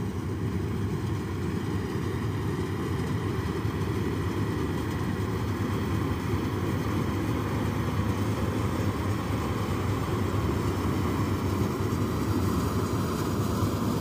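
Malkit 997 combine harvester running while cutting: a steady drone of engine and threshing machinery, growing a little louder near the end.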